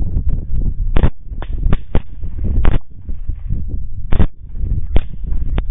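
About eight sharp rifle shots from several shooters in irregular succession, some close together and some about a second apart, with a low rumble of wind and handling noise on the rifle scope's microphone underneath.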